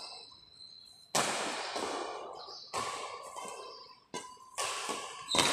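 Badminton rally: rackets hitting the shuttlecock about five times, sharp hits roughly every second to second and a half, each ringing on in the hall's echo.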